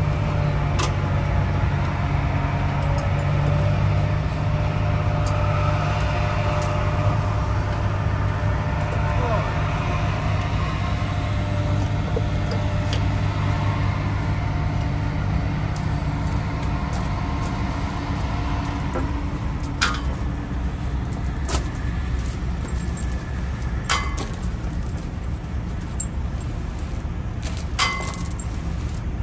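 Heavy diesel engine idling with a steady low hum, easing somewhat partway through. In the second half, steel chains clink and rattle in a few sharp metallic knocks as the load's wrappers and binders are handled.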